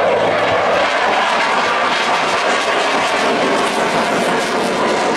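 Jet noise from a low-flying KAI T-50i Golden Eagle's single F404 turbofan: a loud, steady rushing sound as the jet flies past.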